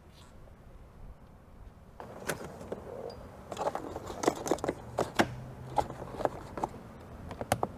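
Car door power window being worked after a window regulator and motor replacement: a series of sharp clicks and knocks from about two seconds in, with the window motor humming steadily for about a second and a half a little past the middle.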